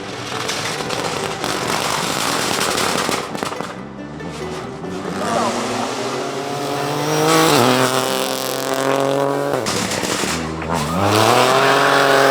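Opel Corsa Rally4's turbocharged three-cylinder engine accelerating hard at full throttle, pitch climbing steeply. It dips sharply near the end, as on a lift or gear change, then climbs again, over road and tyre noise.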